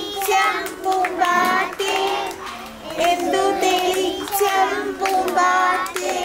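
A group of young children singing a song together, a simple melody of short held notes.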